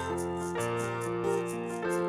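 Instrumental keyboard music: sustained piano-like chords that change about every second, over a light ticking beat about four times a second.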